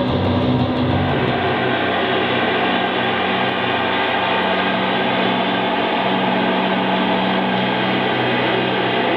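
Dense, continuous electronic drone from a long drawing pole scraping on paper: the drawing is picked up, run through effects pedals and played through a loudspeaker as a rough noisy wash over steady low hum tones. The lowest rumble drops away about a second and a half in.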